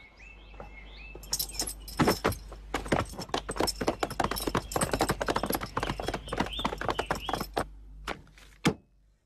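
Hooves of several horses clopping on a hard road, many irregular overlapping strikes, possibly with a light jingle of harness. The clatter starts about a second in and dies away near the end.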